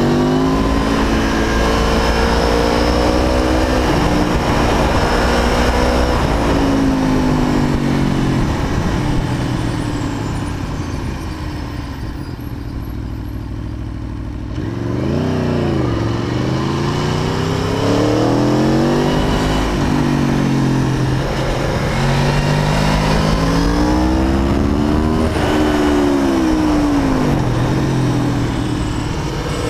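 Aprilia Tuono V4 APRC Factory motorcycle's V4 engine being ridden hard, its revs climbing and dropping again and again through throttle and gear changes. About ten seconds in it quietens and falls low, then pulls strongly again from about fifteen seconds.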